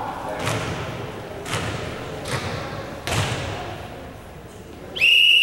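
Volleyball struck four times, about a second apart, with the hits echoing in a gym. Near the end a referee's whistle starts one loud steady blast.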